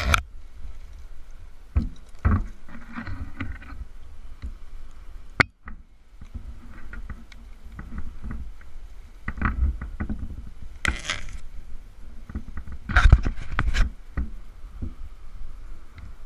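Climbing rope and hardware knocking, clicking and scraping against a cedar trunk. There is a sharp click about five seconds in and longer scraping rushes around ten, eleven and thirteen seconds in, over a low rumble.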